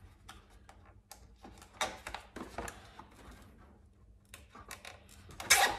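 Plastic clicking and rustling as a zip tie is worked through an RC car's plastic inner fender and chassis, with a short loud rasp near the end as the tie is pulled tight.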